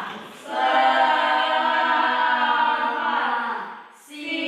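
A class of students' voices in unison, chanting or singing one long drawn-out phrase on held notes; a fresh group phrase begins near the end.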